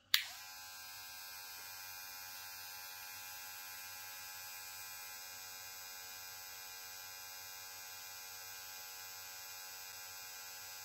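Cronier CR11 cordless hair clipper switched on at the start, then running with a steady, even electric buzz.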